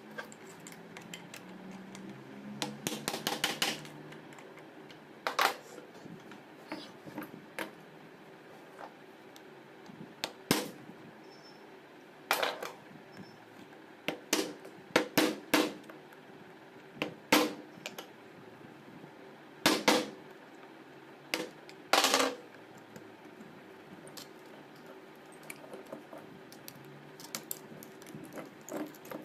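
Steel screwdriver tip prying and scraping at an alternator rotor's slip ring on its shaft, giving irregular sharp metallic clicks and taps. A quick run of clicks comes about three seconds in, with single louder clicks scattered after.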